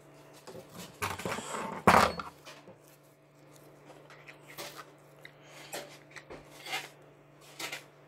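Rustling and clicking of toy packaging being handled and opened, with one loud knock about two seconds in.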